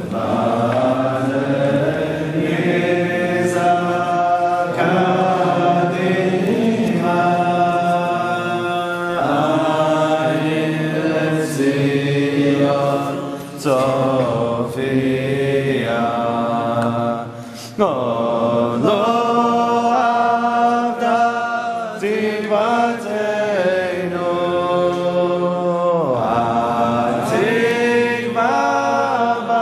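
Slow chanted singing of a prayer, long held melodic notes in phrases with brief pauses between them.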